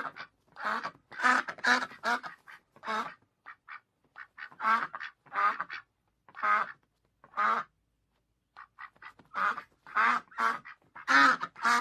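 Duck quacking: a string of short quacks in quick groups, with brief pauses between the groups.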